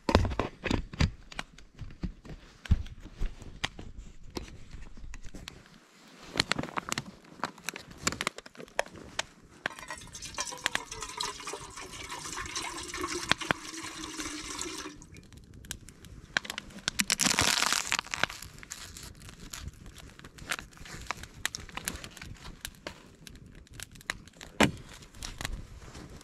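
Water poured from a bottle into a metal pot sitting on a burning split-log fire, a steady pouring for about five seconds in the middle, its pitch changing as the pot fills. Scattered clicks and knocks run throughout, and a short, loud hiss comes a few seconds after the pouring.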